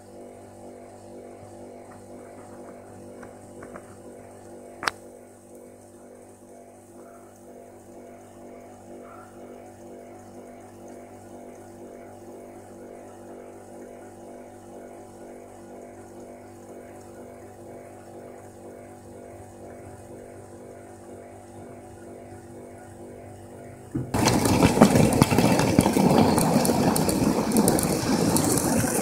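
Steady electrical hum made of several pitches, with one sharp click about five seconds in. About 24 seconds in, a much louder rushing, rattling noise starts suddenly and keeps going.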